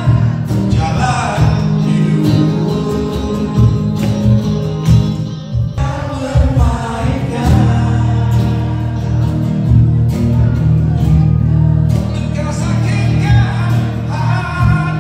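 Rock band playing with a singer: a steady bass line, regular drum hits and guitar under the vocal line.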